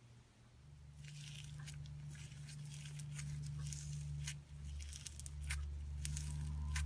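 Slime being squeezed and pulled by hand, giving a run of small crackles and pops that starts about a second in, over a low hum that grows louder.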